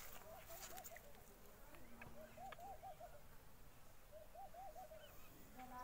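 Faint bird calls: three short phrases of quick, wavering cooing notes, about two seconds apart.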